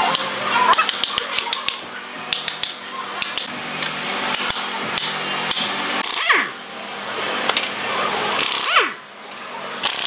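Metal tapping and clinking on a stripped four-cylinder engine block, then several short bursts from a pneumatic wrench in the second half, each ending in a falling whine as the tool spins down.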